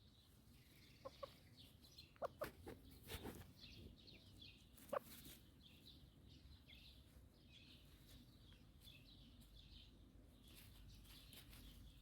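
A chicken clucking in short, separate calls: two about a second in, a quick cluster around two to three seconds, and one louder cluck near five seconds. Small birds chirp faintly and steadily in the background.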